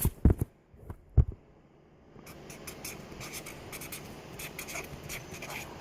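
Handwriting: a run of short, scratchy pen strokes on a writing surface, starting about two seconds in, after a couple of soft knocks in the first second or so.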